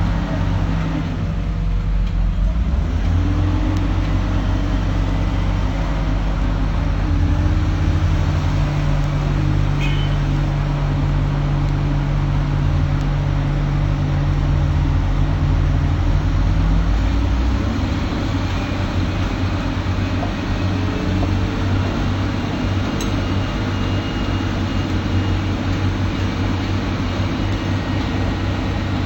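Excavator's diesel engine running steadily under work. Its low note shifts and drops back a little about two-thirds of the way through.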